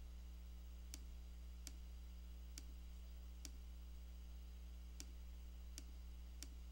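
Computer mouse clicking about seven times at uneven intervals of roughly a second, each click placing a point of a mask, over a steady low electrical hum.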